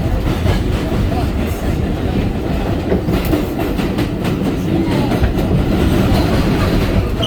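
R32 subway train running between stations: a steady rumble with the wheels clacking over rail joints.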